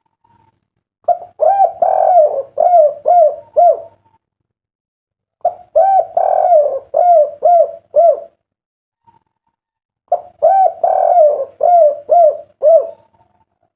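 Spotted dove (derkuku) cooing its 'kuk 3' song, three phrases about 4.5 seconds apart. Each phrase is a run of about half a dozen rising-and-falling coo notes, with a drawn-out note in the middle.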